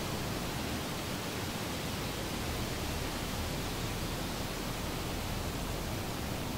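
Steady, even rushing noise with no events or changes, like a pink-noise or white-noise ambience bed.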